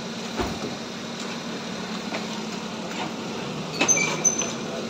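Petrol pump forecourt machinery humming steadily, with scattered light clicks. About four seconds in come a cluster of sharper clicks and a few short high beeps.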